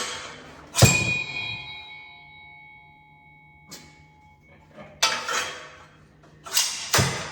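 A steel headset cup removal tool clangs once, then rings on for about three seconds with several clear bell-like tones. Shorter metallic handling clatters follow near the end.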